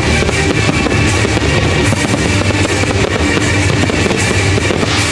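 Loud rock music with guitar, with firework bangs and crackling mixed in under it.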